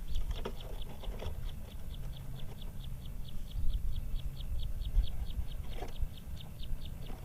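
Steady high chirping, about five short chirps a second without a break, from a small animal. Under it is a low rumble and a few soft knocks.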